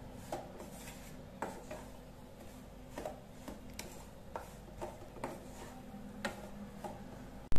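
Wooden spatula scraping and knocking against a nonstick pan while stirring a dry, crumbly coconut and milk-powder mixture, in irregular strokes about one or two a second.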